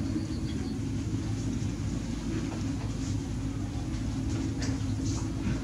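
Steady low mechanical rumble, with a few faint clicks around four to five seconds in.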